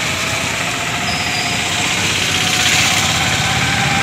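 Street traffic on a wet road: an auto-rickshaw's small engine running as it drives through standing water, over a steady hiss of tyres on wet tarmac.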